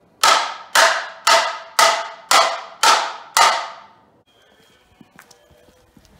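Two metal frying pans banged together: seven loud ringing clangs about half a second apart, each ringing out briefly. They stop a little after three seconds in.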